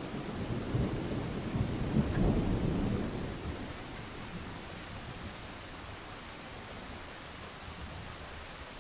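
A rumble of thunder, loudest about two seconds in and fading out by about four seconds, over a steady hiss of rain.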